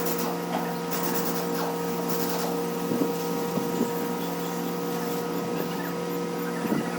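A steady mechanical hum with light clicks and knocks scattered through it.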